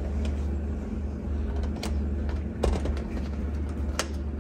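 Hands fitting a rivet through the convertible top into the B-pillar frame hole: a few light clicks and rustles over a steady low hum.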